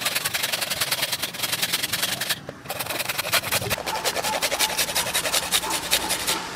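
Carrot being grated on a flat metal hand grater: fast, rhythmic scraping strokes, with a brief pause about two and a half seconds in.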